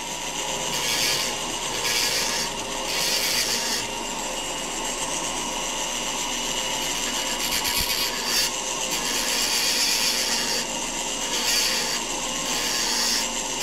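Foredom flexible-shaft rotary tool running steadily, its small wheel grinding and polishing the chip-breaker groove in a high-speed steel lathe tool bit. The grinding hiss swells and fades about once a second as the wheel is worked back and forth over the steel.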